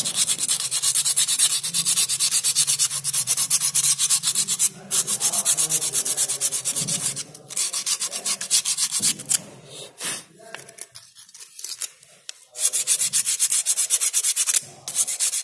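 Sandpaper scrubbing in quick back-and-forth strokes over an e-scooter's drum brake, cleaning off the carbon buildup that makes the drum brake noisy. The strokes pause briefly a few times, slow and thin out in the middle, then run fast again before stopping near the end.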